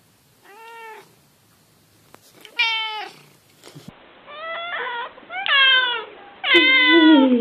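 Domestic cats meowing: one cat gives two short meows, then a second cat meows about four times in quick succession, each louder and longer than the one before, the last the loudest.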